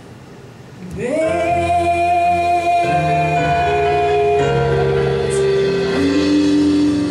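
Live band music with a female lead singer: after a brief lull, she slides up into a long held note about a second in, over sustained chords and a bass line that shift beneath it, then holds a lower note near the end.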